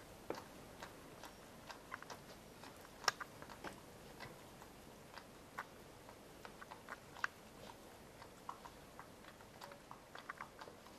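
Faint, irregular wet smacking clicks from a Pembroke Welsh Corgi mother and her three-day-old puppies: the licking and suckling sounds of a nursing litter. The sharpest click comes about three seconds in.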